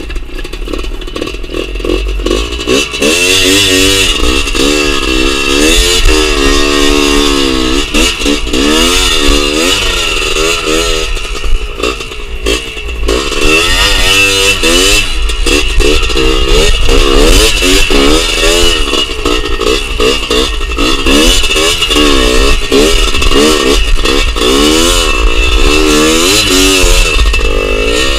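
Two-stroke trail motorcycle engine revving up and down in repeated bursts under load while climbing a rough, rocky dirt trail, with the bike clattering over the ground. It starts softer and gets loud about two seconds in.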